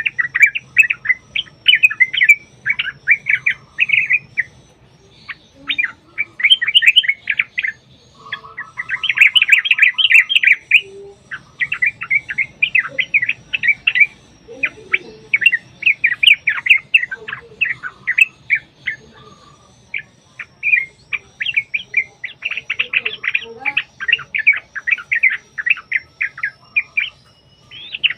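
Yellow-vented bulbuls (trucukan) singing: fast, bubbling chattering phrases of a few seconds each, separated by short pauses.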